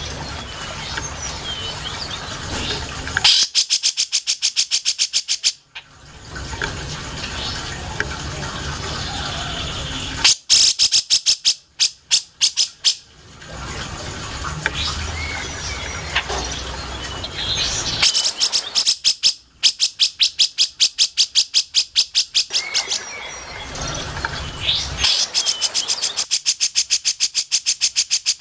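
Cucak jenggot (grey-cheeked bulbul) calling in four bursts of rapid, evenly spaced notes, about nine a second, each burst two to four seconds long. Softer chirps and a low hum fill the gaps between bursts.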